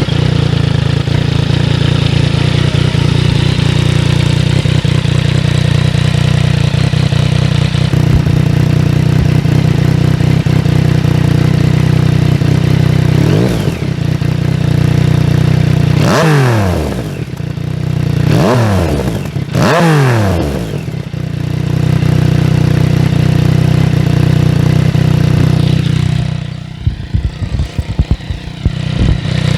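Yamaha MT-09's three-cylinder engine idling through a baffled (dB-killer) Maverick GP1 aftermarket exhaust. It is blipped four times in the middle, each rev rising and falling quickly, then settles back to idle and falls away near the end. The note is a lot more muted and not as throaty as the open pipe.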